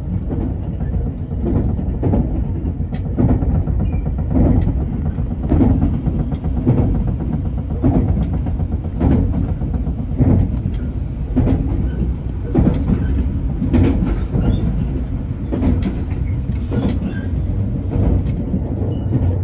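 JR West 287 series electric train running, heard from inside the carriage: a steady low rumble with the wheels clacking over rail joints about once a second.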